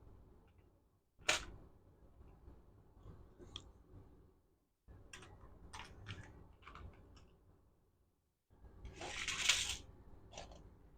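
Small clicks and handling noises of hand tools and wiring parts, with a sharp click about a second in and a brief rustle near the end.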